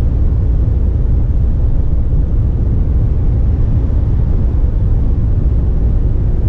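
Steady low drone of a Mercedes-Benz truck driving along, engine and tyre noise heard from inside the cab.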